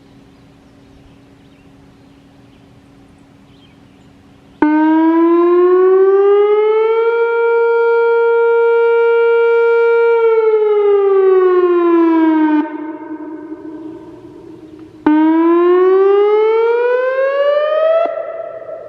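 Whelen WS-2802 electronic outdoor warning siren sounding during a test. About four and a half seconds in, its tone starts abruptly, rises, holds, then falls and cuts off, leaving a fading echo. A couple of seconds later it starts again, rises higher and cuts off near the end.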